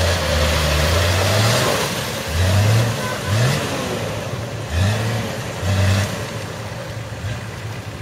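Nissan Patrol GR's engine revving in repeated short bursts as the 4x4 strains while bogged in deep mud and being towed out. After about six seconds it drops back to a quieter, steady run.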